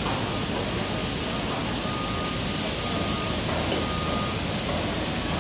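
Steady construction-site machinery noise with a warning alarm beeping repeatedly, a thin high tone that comes and goes about every second.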